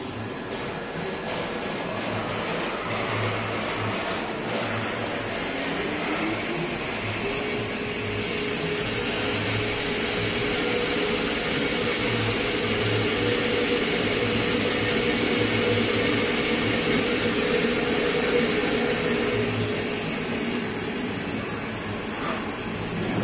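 CNC lathe spindle winding up with a rising whine, then running steadily at low speed, spinning a long hydraulic piston rod held in the jaw chuck while a turret turning tool faces the rod's end.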